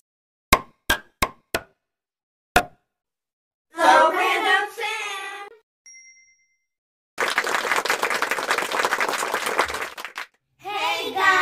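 Animated intro sound effects: four quick pinging dings within about a second, a fifth a moment later, a short voice phrase, a brief high chime, then about three seconds of applause-like noise.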